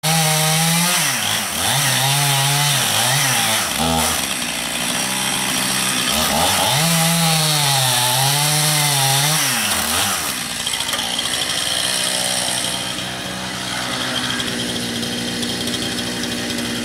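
Chainsaw cutting into a locust tree's trunk, its engine pitch dipping and climbing again and again as the chain bogs in the cut and recovers. After about ten seconds it backs off and settles to a steady lower idle.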